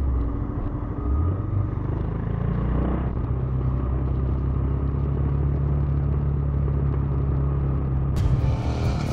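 2017 Royal Enfield Himalayan's single-cylinder engine running steadily, its pitch stepping up about a second in, during a roll-start down a hill.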